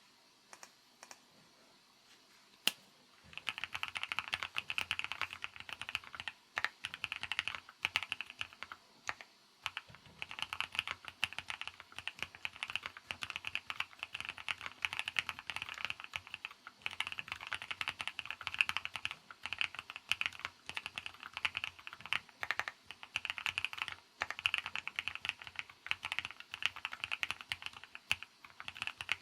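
Fast typing on a SEA 75 custom mechanical keyboard, a dense run of key clicks with short pauses. A single keystroke sounds alone before the continuous typing starts about three seconds in.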